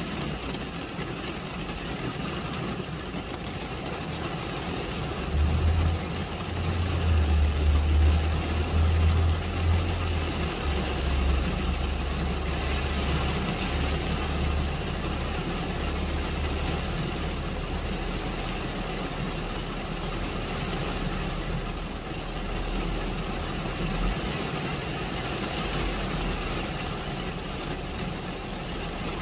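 Rain falling on glass, a steady hiss, with a low rumble underneath that comes in a few seconds in, is loudest for a few seconds and dies away near the end.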